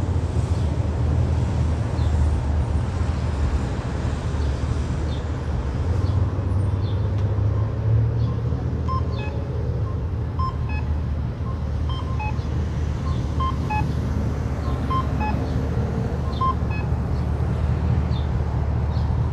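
Steady low rumble of city street traffic, with a run of short electronic beeps repeating more than once a second through the middle.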